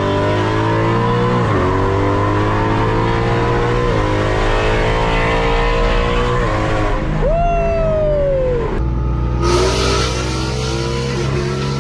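A car engine accelerating hard through the gears, its pitch climbing and dropping back at three upshifts about two and a half seconds apart. Then a high whistle falls away over about a second and a half, and the engine settles to a steadier run.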